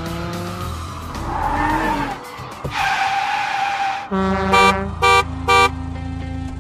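Cartoon vehicle sound effects: a tyre screech, then an engine running steadily under three short, loud horn honks, with music underneath.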